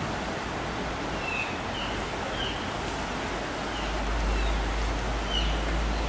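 Steady rush of river rapids, with a small bird giving a string of short, high chirps over it. A low rumble comes in about four seconds in.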